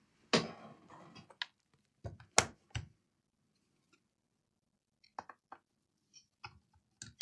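Clicks and knocks of a laptop motherboard being handled and set down into its case: a few sharp knocks in the first three seconds, the loudest about two and a half seconds in, then a pause and a few lighter ticks near the end.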